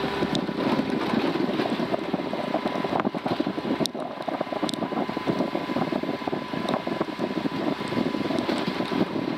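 Kubota utility vehicle driving along a dirt trail, its engine and drivetrain running steadily with a rough rumble. A few sharp clicks stand out over it in the first five seconds.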